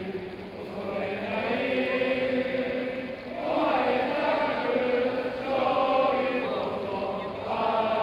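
A large crowd of football supporters singing a chant in unison, the many voices swelling with each phrase every two seconds or so.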